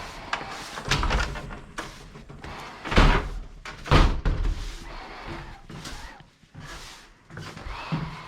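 Several heavy thumps and knocks, like a door or cupboard being shut, the loudest two about three and four seconds in.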